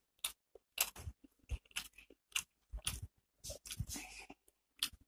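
Close-miked chewing of a mouthful of crisp onion pakora and rice: a string of short, irregular crunches and mouth smacks with brief pauses between them.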